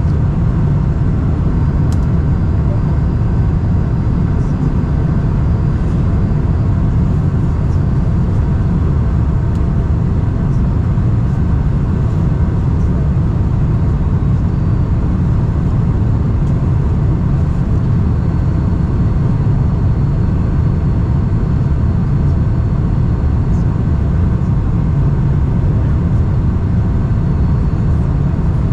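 Steady cabin noise inside a Lufthansa Boeing 747-400 in flight: the low rumble of the engines and rushing airflow past the fuselage, with a few faint steady whines above it.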